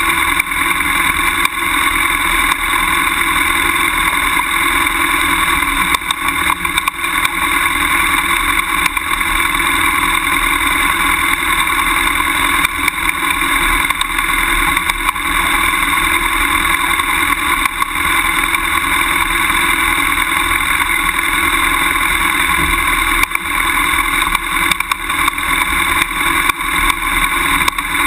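BMW F800GS parallel-twin motorcycle engine running steadily as the bike rolls down a loose gravel track, with frequent small knocks from the rough ground.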